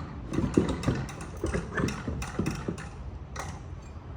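A thin metal pry tool working the silicone-sealed seam of a geared e-bike hub motor's side cover: a quick, irregular run of metal clicks and scrapes, busiest in the first three seconds.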